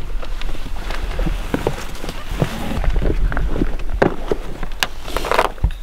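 Hunting gear being handled beside a pickup truck: a hard rifle case set down on gravel, with irregular knocks, clicks and footsteps on gravel, and a longer scrape about five seconds in.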